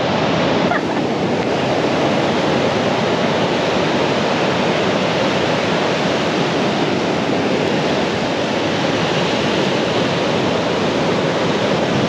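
Steady rushing wash of surf on a beach, with no single waves standing out.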